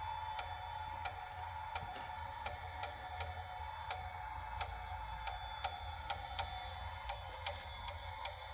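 Anova Precision Cooker Pro sous-vide circulator running with a steady hum, broken by a sharp slap or knock that repeats unevenly, about twice a second. This is the fault noise the cooker is making.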